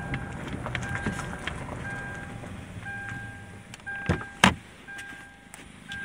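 Inside a moving car, a short electronic beep repeats about once a second over low road rumble. Two sharp knocks come about four seconds in.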